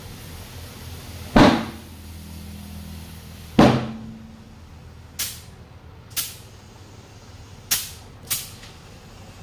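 Car tyre on an alloy wheel being inflated through an air-line inflator with a dial gauge: two loud, sharp bursts about two seconds apart, then four shorter, fainter puffs of air.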